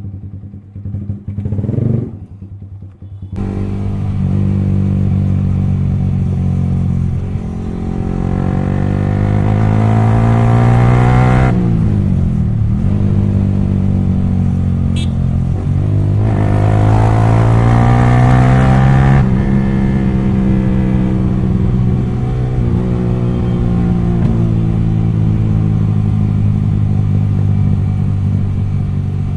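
Yamaha R15 V3's single-cylinder engine through an exhaust with its dB killer removed, pulling away about three seconds in. The engine note climbs in pitch twice and drops sharply after each climb, as on gear changes, then runs steady.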